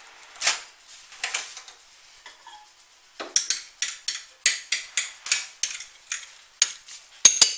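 A microwave door is opened with a sharp click about half a second in, then a metal spoon clinks against a bowl, about three taps a second, as partly melted butter is stirred between 30-second heating bursts.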